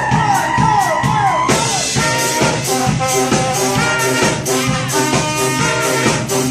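Brass band with saxophone playing live over a drum beat. A held high horn note drops off in pitch several times in the first second and a half, then the full band comes in on a rhythmic riff.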